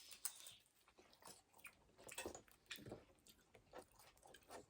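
Faint chewing and wet mouth sounds of someone eating rice porridge, with scattered soft clicks and smacks.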